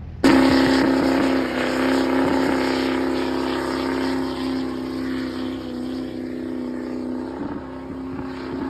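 Car engine revved hard and held at a steady high pitch during a burnout, over a hiss of spinning tyres. It starts abruptly a moment in.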